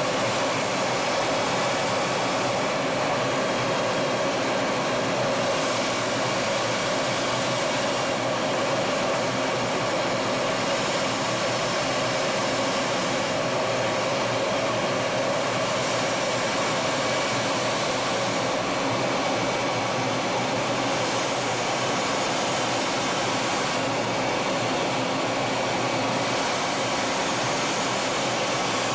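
Steady, unbroken jet engine and rushing-air noise heard inside the cockpit of a Kfir fighter jet in flight.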